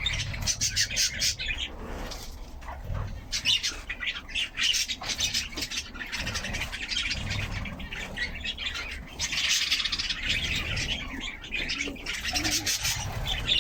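Birds chirping in repeated flurries of high calls, over a low rumble.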